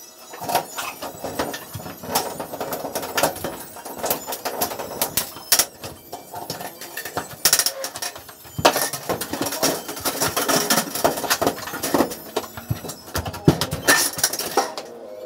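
Irregular metallic clanking, clicking and knocking as galvanized steel studs and track are handled and fastened in a drywall partition frame.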